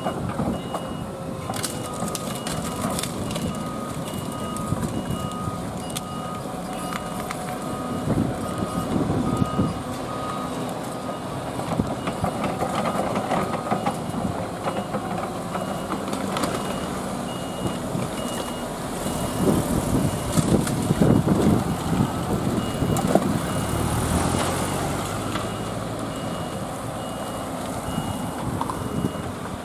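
Diesel engines of a debris-sorting excavator and dump trucks running, with reversing alarms beeping in a steady on-off rhythm: a higher-pitched one throughout and a lower one for about the first ten seconds. Twice, at about 8 seconds and from about 19 to 24 seconds, there is a louder rattling crash as debris is handled.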